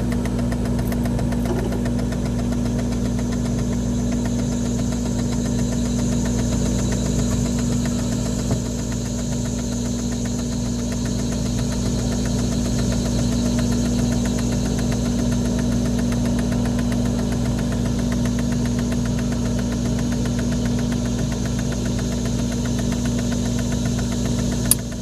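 Whirlpool ice maker's drive motor humming steadily as it runs through its harvest cycle after its timer has been advanced by hand. A single click comes about eight seconds in, and another near the end, after which the hum eases as the cycle finishes.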